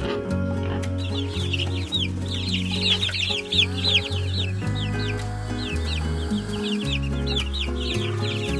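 Chickens calling in a rapid run of short, high, falling notes, starting about a second in, over background music with a steady bass line.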